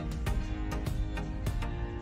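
Background instrumental music with sustained pitched notes and frequent sharp note attacks.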